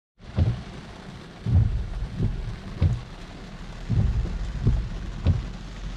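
Rain falling: a steady hiss with irregular low thuds of heavy drops, about one a second.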